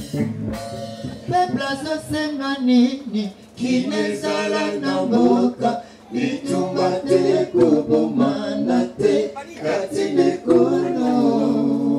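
Vocal music: singing voices carrying a melody, with little instrumental backing and some long held notes near the end.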